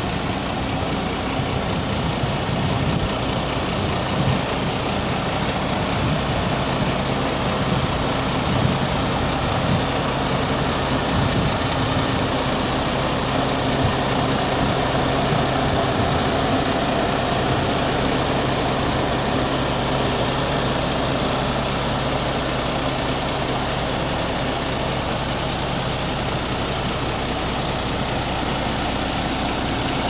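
The diesel engine of a MAN TGS 32.400 concrete mixer truck idling steadily.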